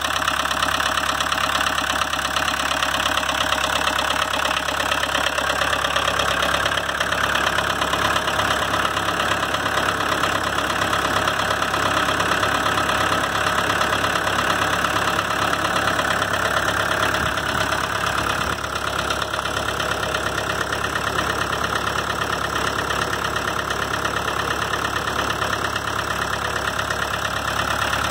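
1983 Volkswagen Quantum Turbo Diesel's 1.6-litre four-cylinder turbodiesel idling steadily. It is running for the first time in years on a newly fitted cylinder head with new gaskets and head studs.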